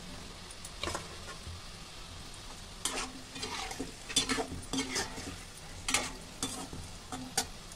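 Jaggery-and-wheat-flour dough balls deep-frying in hot oil in a kadhai, with a steady sizzle. From about three seconds in, a slotted metal spoon stirs them, scraping and clinking against the pan several times.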